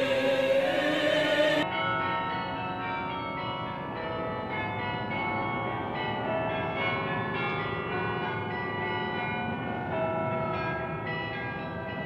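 A choir singing cuts off about two seconds in, giving way to Russian Orthodox church bells pealing: several bells of different pitch struck over and over in a quick, uneven pattern, their tones ringing on and overlapping.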